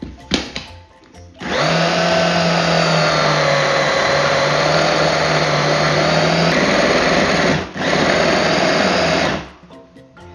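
Mini food processor's motor running under load as it mixes shortcrust pastry of flour, butter and egg. It runs steadily for about six seconds, stops for a moment, then runs about two seconds more and stops.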